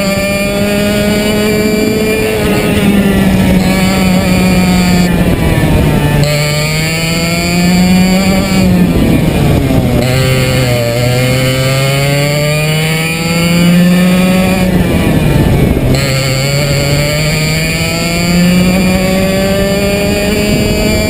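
Onboard sound of a TAG 60 cadet kart's single-cylinder 60 cc two-stroke engine at racing speed. The revs climb steadily along the straights and drop off sharply four times as the kart slows for corners, each time picking up again on the exit.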